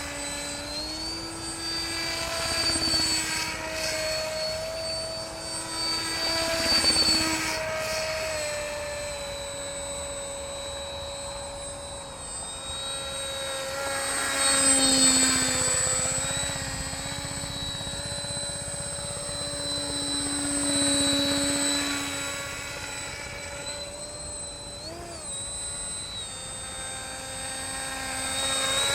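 Radio-controlled autogyro in flight: its motor and propeller drone steadily, the pitch stepping up and down several times with throttle changes, and the sound swelling and fading as it flies nearer and farther.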